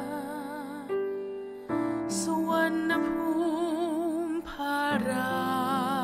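Slow music of long held melody notes with a wavering vibrato over a soft accompaniment, the melody moving to a new note about a second in, again near two seconds, and again about five seconds in.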